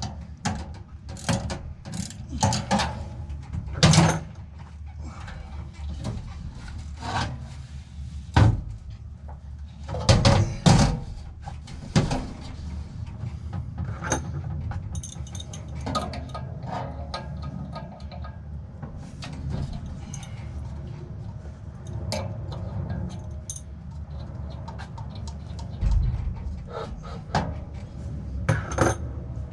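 Irregular metallic clanks, clicks and rattles of tools and sheet-metal parts being handled while a replacement ECM blower motor is fitted, over a steady low hum.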